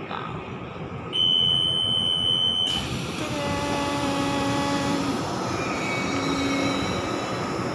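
Metro train coming to a stop at a station, heard from inside the car. The running rumble carries on throughout. About a second in, a loud high steady tone sounds for about a second and a half, and lower held tones follow as the doors open.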